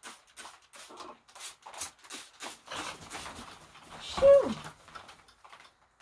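Hand-pumped trigger spray bottle squirting water over a wet macaw, a quick run of short hissing squirts at about four a second. One short call falling in pitch stands out about four seconds in.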